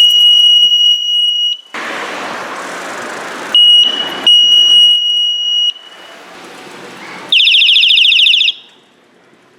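Electronic skull bicycle horn being sounded in turn through its different tones: a loud, steady, high-pitched beep, a loud hissing noise, the beep again in two short parts, a quieter hiss, then a fast warbling tone about a second long near the end, after which it stops.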